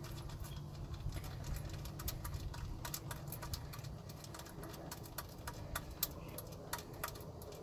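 Scattered light metallic clicks and taps at irregular spacing as motor cable lugs and terminal nuts are handled and fitted on a golf cart's motor controller, over a steady low rumble.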